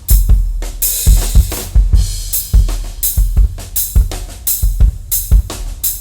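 Acoustic drum kit played in a steady groove: bass drum thumps, snare strikes and cymbal wash, a few hits each second.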